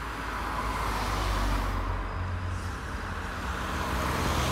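Volkswagen Golf GTI driving past, its turbocharged four-cylinder engine a low steady rumble that grows louder as the car approaches, with tyre and road noise.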